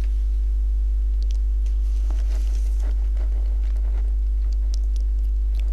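Steady low electrical hum with a few faint steady tones above it, and faint scattered rustles.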